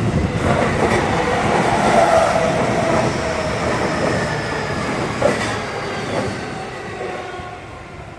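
A train passing close by: loud, steady rail and wheel noise with a whining tone that falls slightly in pitch and a few sharp knocks, fading away near the end.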